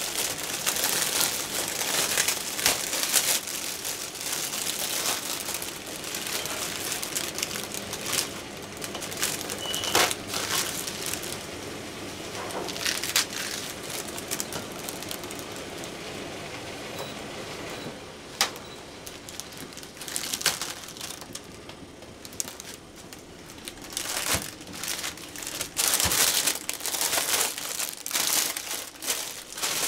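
Hands tearing crisp lettuce leaves and crinkling a thin plastic bag: continuous crackly rustling with many short sharp snaps, easing off a little past two-thirds of the way through before picking up again.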